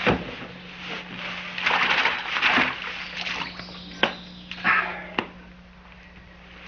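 Water sloshing and splashing in a stone fountain basin as a man scoops it onto his face, in a few uneven bursts. There is a sharp knock right at the start, a couple of sharp clicks later on, and a low steady hum underneath.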